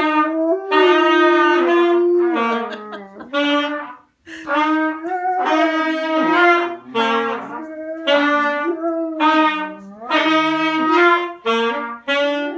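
Trumpet and saxophone playing a series of long held notes in short phrases, some notes bending in pitch, with a brief break about four seconds in.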